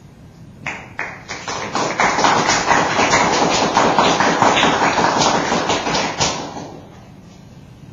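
Audience applauding: a few separate claps about a second in, building quickly into steady applause, which dies away near the end.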